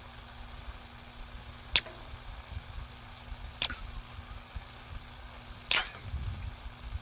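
Three suppressed subsonic .22 LR shots (CCI standard velocity) from a silenced AR-pattern rifle with a .22 conversion kit, heard from about 50 yards. They come as sharp, dull cracks about two seconds apart, over a steady faint hum.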